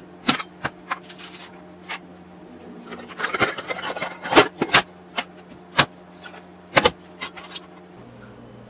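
Irregular sharp knocks and clatters of a kitchen drawer being opened and rummaged through, thickest about three to five seconds in, over a faint steady low hum.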